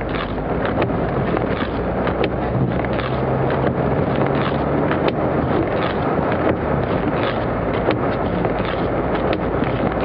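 Jeep 4x4 driving along a snow-covered road, heard from inside the cab: steady engine and road noise with wind buffeting and scattered sharp clicks.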